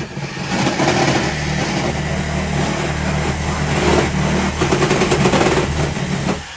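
A power tool running steadily, then stopping near the end.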